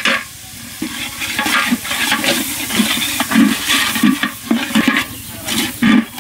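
Onions and green chillies sizzling in hot oil in a cooking pan, stirred and scraped with a spatula, with irregular scrapes and light knocks against the pan: the spice base for a prawn curry being fried.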